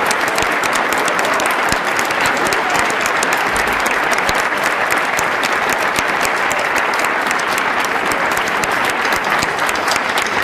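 Concert audience applauding: a steady, dense clapping of many hands.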